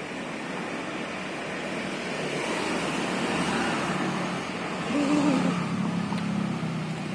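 Road traffic passing, with a steady rush of vehicle noise that swells about two to four seconds in. About five seconds in there is a brief pitched sound, the loudest moment, followed by a low engine hum.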